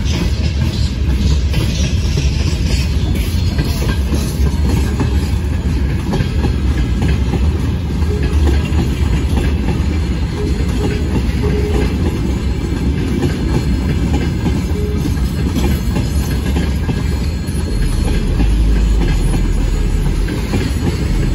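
Freight train of open gondola wagons rolling past: a steady loud rumble with the wheels clicking over the rail joints.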